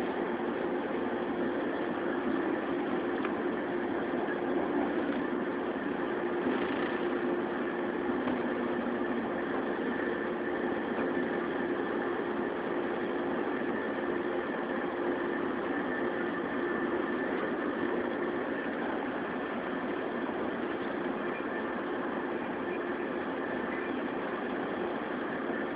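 Interior running sound of a JR 115-series electric multiple unit motor car pulling slowly into a station: a steady rumble of wheels and running gear with a steady hum, easing slightly as the train comes to a halt.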